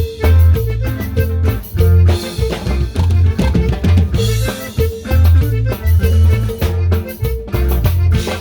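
Band music with a drum kit and a deep bass line keeping a steady beat, a repeated mid-pitched note running over it.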